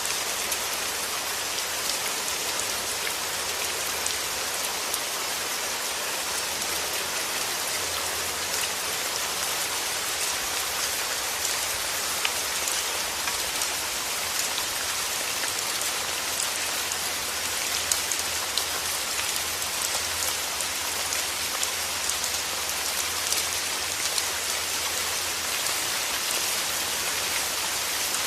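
Steady rain falling, an even hiss with individual drops ticking through it.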